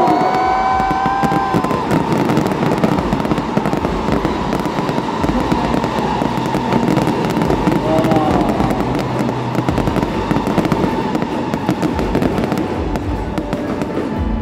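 Aerial fireworks crackling and popping in a rapid, dense stream of sharp cracks.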